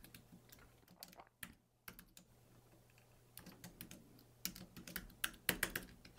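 Faint typing on a computer keyboard: scattered keystrokes, then quicker runs in the second half that are loudest near the end, as an administrator password is typed in.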